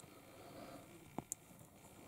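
Small plastic toy-figure parts being handled, with two sharp clicks close together just after a second in.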